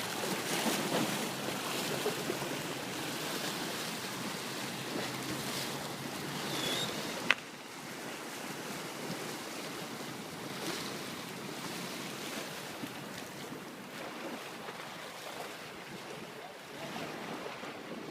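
Sea waves and wind noise on the microphone: a steady noisy wash that swells now and then, with a single sharp click about seven seconds in.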